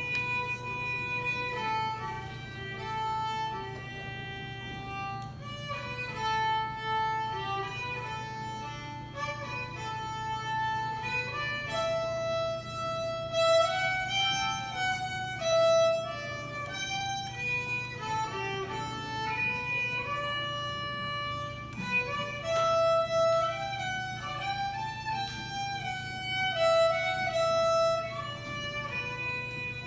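A violin played with a bow, running through a melody of many short, changing notes.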